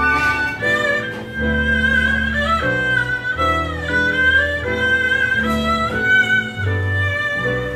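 A small live ensemble playing: a bowed string instrument carries the melody, sliding between some notes, over long held low notes from an upright double bass.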